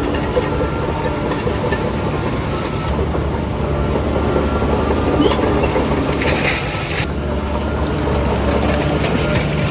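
Heavy diesel earthmoving machinery running steadily, with a short hiss a little past the middle that cuts off sharply.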